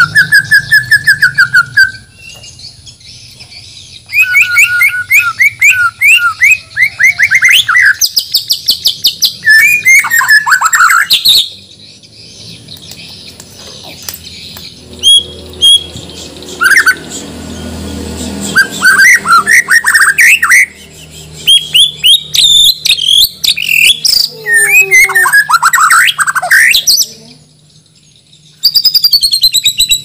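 White-rumped shama of the Borneo type singing loud, varied phrases packed with mimicked song: fast runs of repeated notes, sweeping whistles and rapid trills, broken by a few short pauses.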